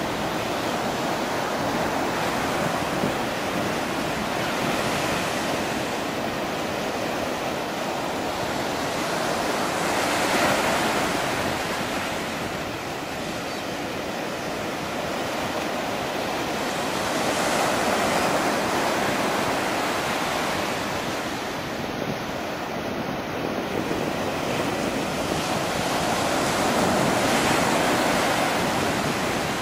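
Small sea waves breaking and washing up a sandy beach, a steady surf hiss that swells with each incoming wave about every eight seconds.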